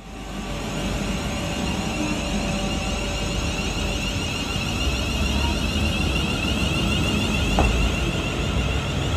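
A train running past: a steady rumble and rush of noise that builds over the first second or two, then holds.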